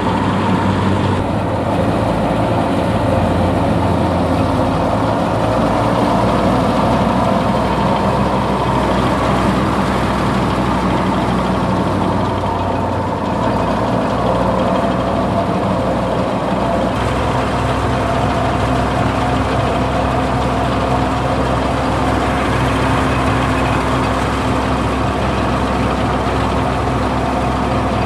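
A Fiat 480 tractor's engine running steadily under load, driving a wheat thresher whose drum and belt-driven pulleys whir along with it.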